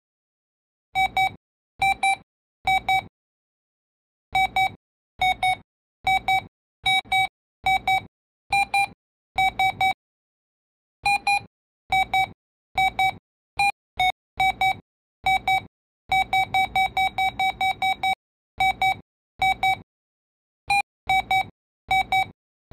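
Electronic beeps at one steady pitch, switching on and off in an uneven rhythm of single and paired tones, with a quick run of short beeps about two-thirds of the way through.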